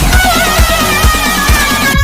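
Background electronic dance music with a steady beat, about two beats a second, under a sustained melody.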